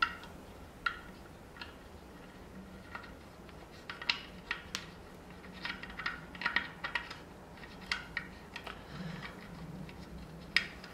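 Light clicks and taps of hands handling a bullet security camera and fitting the round screw-on cover back over the adjustment panel on its underside. The ticks are scattered and irregular, a cluster of them a few seconds in.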